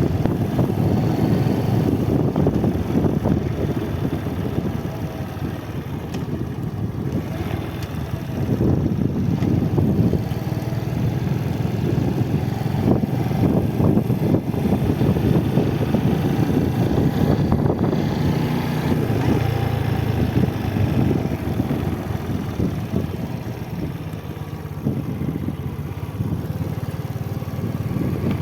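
Motorcycle engine running on the move, its pitch rising and falling a little as the throttle changes, with steady road and wind rush.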